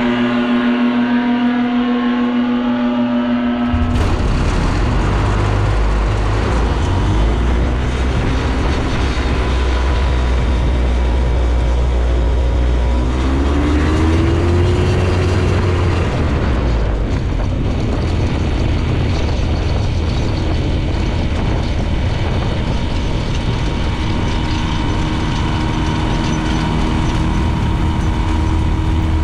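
Background music for the first few seconds, cutting abruptly to the Phantom ultralight's engine and propeller running steadily as the aircraft taxis. The engine note rises and settles back about halfway through.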